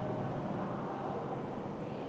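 Steady background noise with a faint hum, no speech: classroom room tone.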